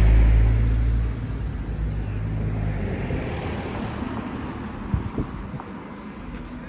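A motor vehicle passing close by on the street: its engine is a loud low rumble at the start and fades away over the next few seconds, with tyre hiss. A couple of short knocks come about five seconds in.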